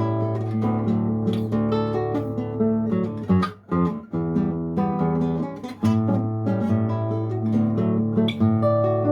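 Nylon-string classical guitar playing solo: a plucked, repeating figure over a held low bass note. About three and a half seconds in there is a short quick passage and a brief dip, then the figure resumes.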